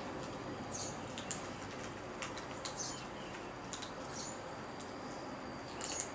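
Kittens eating dry kibble from a plate: irregular small crunches and clicks, about one every half second to a second, over a steady background hiss.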